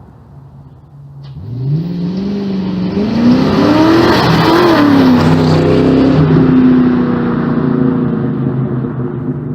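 Ford Mustang GT 2V's 4.6-litre V8 through Flowmaster 40 series mufflers, accelerating hard: the exhaust note climbs in pitch and loudness from about a second in, drops back at a gear change midway, then holds steady at speed.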